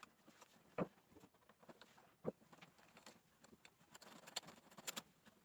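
Near silence broken by a few light clicks and knocks from door knob and latch hardware being handled and checked on a door, two louder ones about one and two seconds in.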